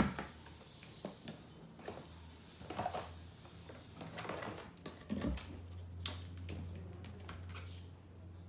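Handling noises: a sharp knock as the solar floodlight is grabbed, then scattered taps, clicks and rustling of the cardboard packaging as hands search through the box. A steady low hum comes in about halfway.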